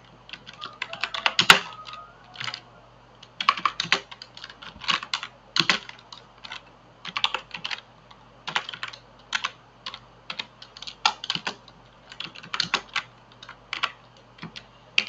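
Typing on a computer keyboard: sharp keystrokes in quick irregular clusters, separated by short pauses.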